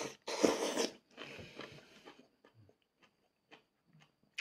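A man slurping up udon noodles, loudest in the first second or so, then chewing quietly with a few small, sparse mouth clicks.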